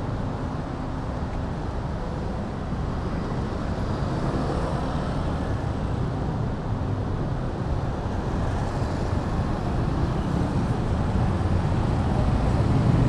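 Steady road traffic on a busy city street, cars and motorbikes passing close by, growing gradually louder toward the end.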